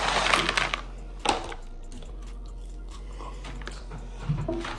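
Crinkling and rustling of fast-food packaging for about the first second, followed by a single sharp click, then quiet handling noises.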